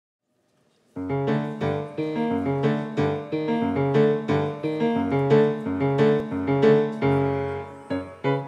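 Grand piano playing, starting about a second in: evenly repeated notes about three a second over a moving bass line. Near the end a note is held and fades before the repeated pattern resumes.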